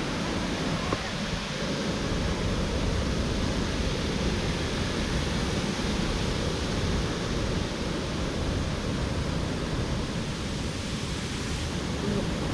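Bomburu Ella waterfall's water falling with a steady, even rush.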